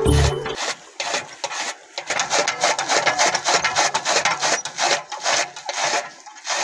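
Hand-driven flywheel chaff cutter chopping green fodder: a rapid run of crunching, rasping cuts as the spinning blades slice the stalks, with short lulls between bursts. A snatch of music cuts off about half a second in.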